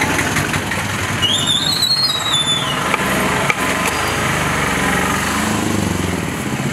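Street traffic noise with motor vehicle engines running steadily, and a brief high tone that rises and then falls about a second in.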